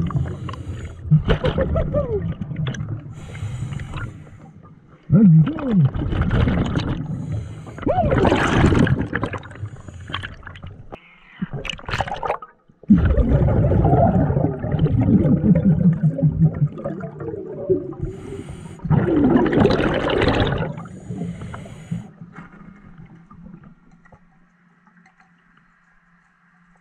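A scuba diver breathing underwater through a regulator: several long bursts of exhaled bubbles gurgling and rumbling, with short hisses in between. In the last few seconds the breathing stops and only a faint steady hum remains.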